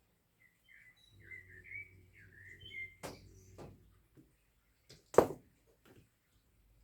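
A small bird chirping a quick run of short warbling notes, with a low hum beneath. A few clicks follow, and a sharper knock about five seconds in is the loudest sound.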